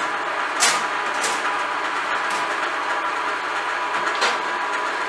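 Metal baking tray being drawn off an oven's wire rack, with a few sharp clicks and knocks, over a steady mechanical hum.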